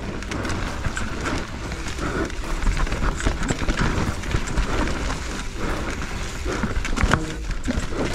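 Mountain bike riding fast down a rough trail: tyres and bike clattering over rocks and roots in a string of rapid knocks, with wind rumbling on the camera microphone.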